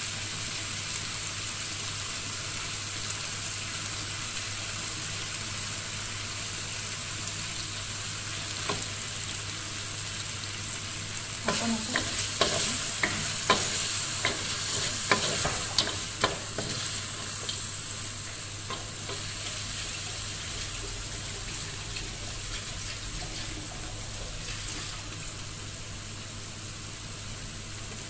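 Chicken pieces and onion frying in a wok with a steady sizzle. In the middle, a wooden spatula stirs them, with a run of sharp scrapes and knocks against the pan.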